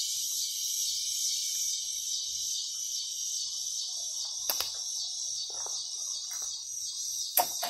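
Hand pruning shears snipping through hydrangea leaf stems: two sharp snips, one about halfway through and one near the end, with faint leaf rustling between them. A steady high-pitched insect chorus runs underneath.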